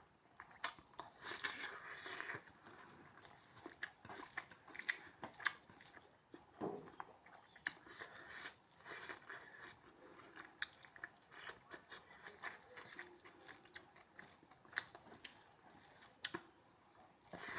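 A person eating pork, biting and chewing with many short, irregular wet mouth clicks.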